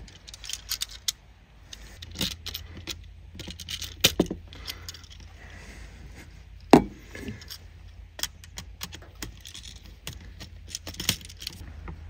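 Light metallic clicks and rattles of a GFCI outlet and its stiff wire ends being handled, as copper wire is hooked around the outlet's terminal screws. Two sharper knocks come about four seconds and seven seconds in, over a steady low hum.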